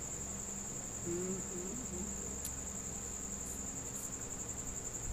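Cricket chirring as one steady high-pitched drone, with a brief low hum about a second in.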